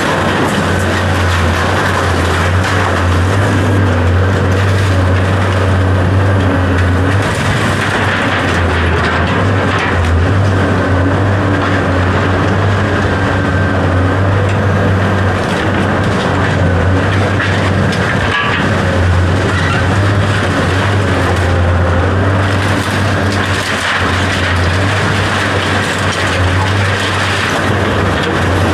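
A machine running steadily, with a deep hum under a broad rushing noise.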